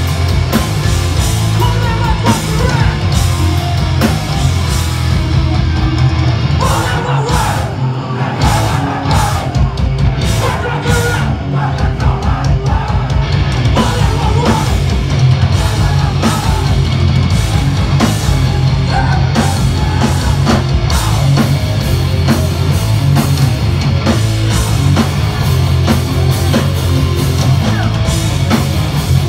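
Hardcore punk band playing live and loud: distorted guitars, heavy bass and drums under shouted vocals. About a quarter of the way in it breaks into a stop-start stretch of separate hits.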